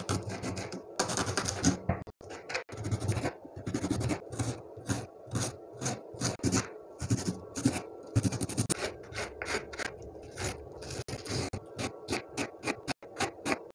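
Kitchen knife chopping vegetables on a wooden cutting board: a long run of quick, sharp taps as the blade cuts through green beans, carrot and green chilli and strikes the board, with some scraping as the pieces are pushed across the wood.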